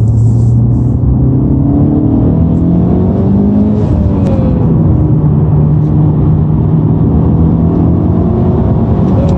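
Honda Civic Type R engine running steadily with a buzzing drone, the buzz that appears when the clutch pedal is pressed.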